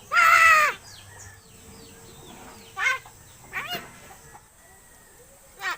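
Pet myna bird calling: one loud, drawn-out harsh call at the start, then three shorter calls about a second apart, the last near the end.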